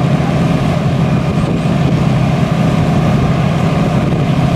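Antique fire engines running steadily under load, their engines driving the water pumps that feed the hose streams.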